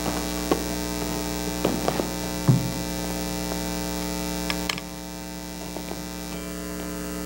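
Steady electrical mains hum on the audio line, with a few light knocks as things are handled at the lectern; the loudest knock comes about two and a half seconds in. Near the middle the hiss under the hum drops a little.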